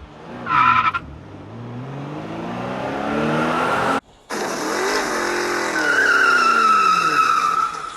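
Car engine revving, with a high tire squeal, in two loud passes split by a sudden brief cut about halfway through; the engine pitch climbs in the first pass and falls away in the second.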